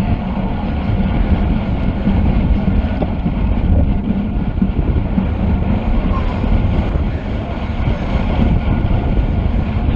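Wind rushing over the microphone of a camera carried on a racing bicycle: a steady, loud low rumble.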